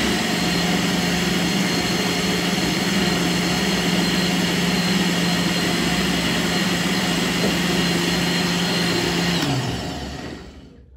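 Electric countertop blender running steadily as it purées a thick fruit-and-vegetable smoothie, then switched off near the end, its motor winding down with a falling pitch.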